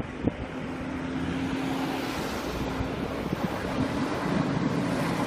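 Electric train running along the track, its noise growing steadily louder, with wind noise on the microphone.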